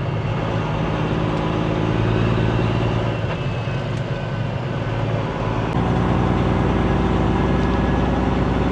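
Semi-truck diesel engine running with a steady hum. About halfway through the pitch of the hum changes and then holds steady, as at idle.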